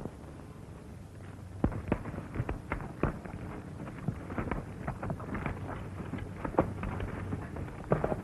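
A single sharp gunshot crack at the start, then scattered, irregular knocks and clicks, several a second, of horses' hooves on rocky ground.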